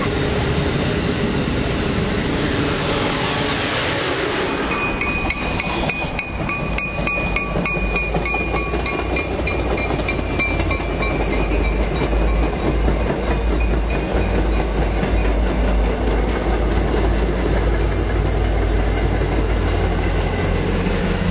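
Amtrak Acela high-speed trainset rushing past, then, after an abrupt change about four and a half seconds in, an MBTA commuter train of bilevel coaches passing close with a deep rumble and repeated wheel clicks over the rail joints. A thin steady whine rides over the passing train for several seconds.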